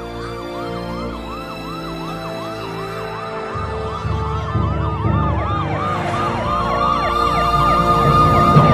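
Several police sirens sounding in fast, repeated rising-and-falling sweeps, growing louder as they close in. A slower, long wail rises about six seconds in, and a low vehicle rumble joins at about three and a half seconds.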